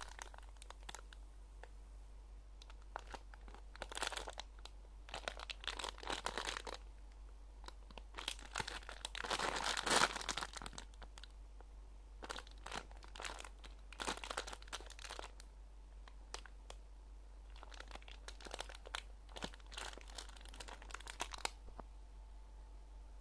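Clear plastic packaging bag crinkling and crackling in the hands as it is handled and opened to take out a squishy toy. The crinkling comes in irregular bursts, is loudest about halfway through, and stops shortly before the end. A faint low hum runs underneath.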